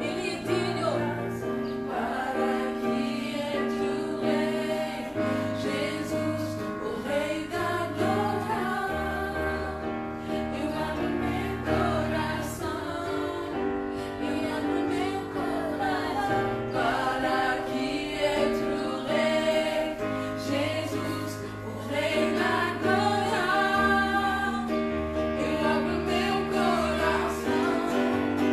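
A gospel worship song: a woman sings the lead with children's voices joining in, over an electronic keyboard holding sustained chords with a bass line that changes every second or two.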